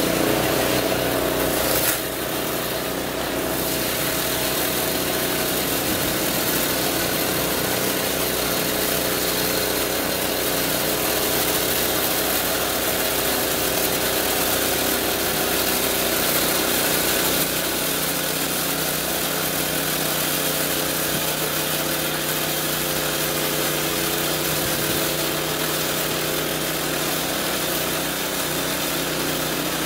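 An engine running steadily, with a slight drop in loudness about two seconds in.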